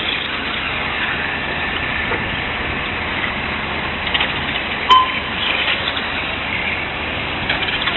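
Radio-controlled racing cars running around an asphalt track: a steady whir with a faint high whine. A short electronic beep sounds about five seconds in.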